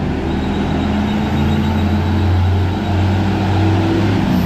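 Medium-duty box truck's diesel engine running steadily as the truck drives up and past at close range.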